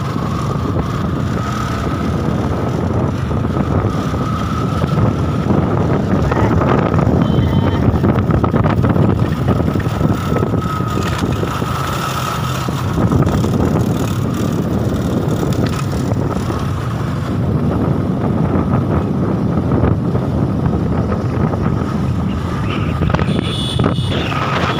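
Motorcycle engine running steadily while riding on a dirt road, with wind buffeting the microphone.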